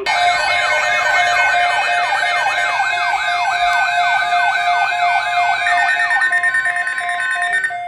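Emergency alert attention tone: a siren-like tone sweeping down in pitch over and over, about two and a half times a second, layered over a steady tone. The sweeps stop about six seconds in, and the steady tone holds on until near the end.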